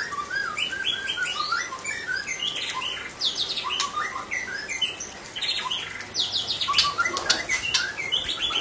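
White-rumped shama (murai batu) singing: a fast, continuous run of varied whistles, chirps and trills, loudest in the middle and near the end.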